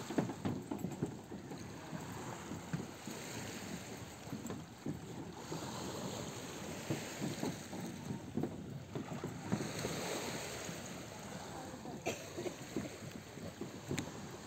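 Small lake waves lapping on a pebble shore, with wind buffeting the microphone.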